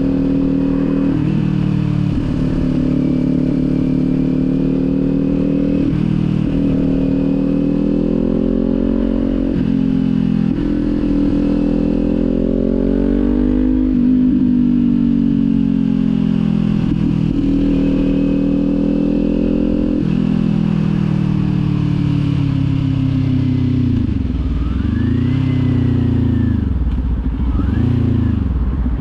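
Kawasaki motorcycle engine running under way. The engine note climbs and then steps abruptly several times, as with gear changes. Near the end the pitch twice falls and rises again as the bike slows and picks up speed.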